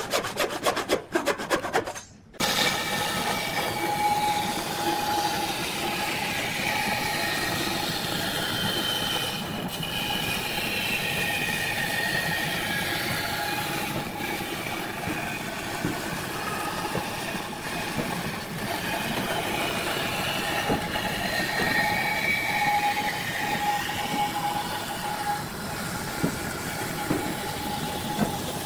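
Bandsaw running and cutting along a curved line through a thick rough-sawn board: a steady machine hum under the rasp of the blade in the wood, with a brief break about two seconds in.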